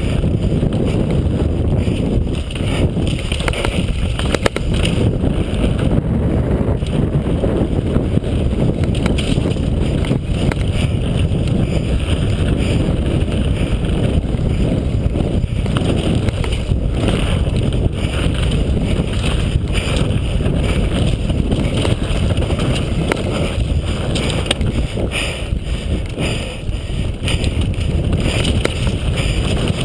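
Wind buffeting a helmet- or bike-mounted action camera's microphone over the steady rumble of a downhill mountain bike's tyres on a dirt trail at speed. Occasional knocks and rattles come from the bike over bumps.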